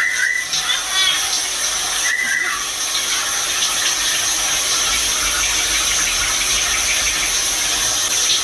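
Water running steadily from a tap, a loud even hiss, with a few short high chirps in the first two and a half seconds.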